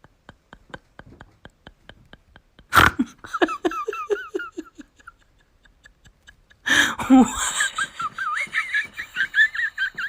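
Laughing in two bursts of pitched, rising and falling syllables: one right after a sharp knock about three seconds in, the other starting loudly about seven seconds in. Before it, a soft regular ticking.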